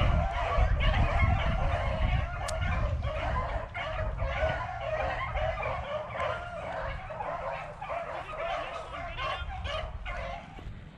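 A pack of beagles baying in a continuous, overlapping chorus while running a rabbit, with a low rumble underneath.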